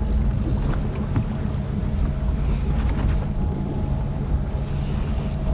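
Fishing boat's engine running steadily with a low hum, with wind buffeting the microphone.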